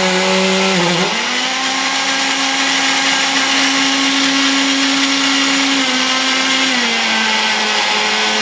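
Electric mixer running steadily as it beats eggs, sugar and lemon zest for a cake batter. Its pitch steps up about a second in and drops a little near the end.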